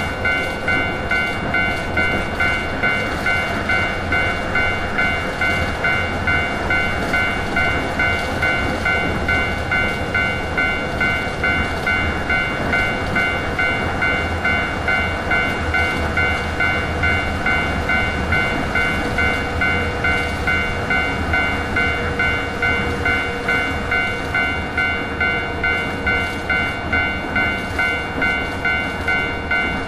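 Japanese railway level-crossing alarm ringing its steadily repeated "kan-kan" bell tone, over the low rumble of a passing electric train.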